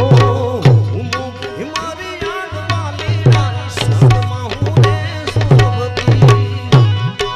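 Instrumental interlude of a Gujarati bhajan: tabla playing a steady beat, its bass drum strokes bending down in pitch, under a melodic instrument.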